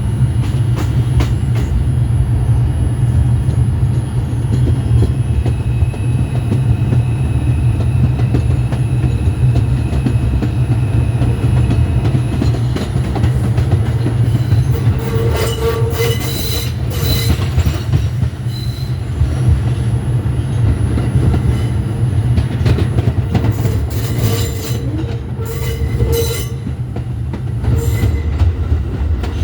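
R142 subway train running along the track with a steady low rumble and clacking over rail joints. Its wheels squeal about halfway through and again near the end.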